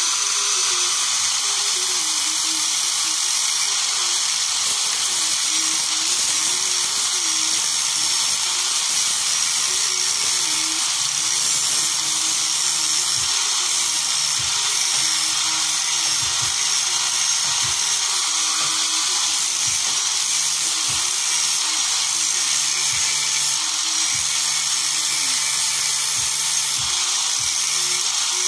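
Handheld electric angle grinder with a yellow disc running steadily at high speed with a continuous whine, used to dress the worn faces of Nissan TD27 rocker arms so the valve clearance can be set right.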